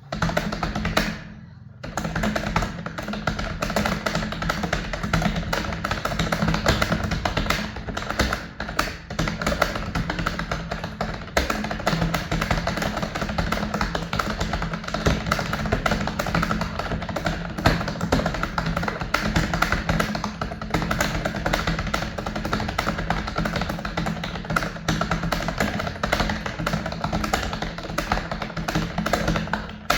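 Rapid typing on a computer keyboard, a dense, continuous run of key clicks, over background music.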